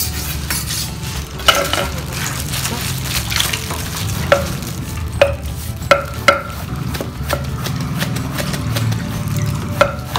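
Kitchen knife chopping leaf lettuce on a round wooden chopping board. Many light cuts with about six sharp knocks of the blade on the wood, irregularly spaced, over a steady low hum.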